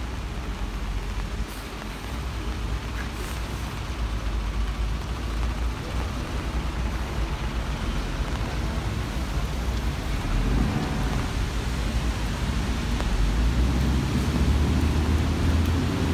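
Heavy rain falling steadily on a city street, with a low rumble of road traffic that grows louder from about ten seconds in as a vehicle passes close by.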